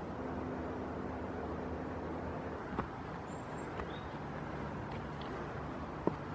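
Steady low outdoor rumble with a faint hum, broken by two sharp knocks, one about three seconds in and the louder one near the end.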